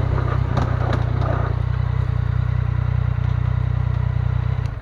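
Yamaha Niken GT three-cylinder motorcycle riding along a rough forest track: a steady low engine and wind rumble, with scattered clicks and knocks from the tyres over loose ground. It cuts off suddenly near the end.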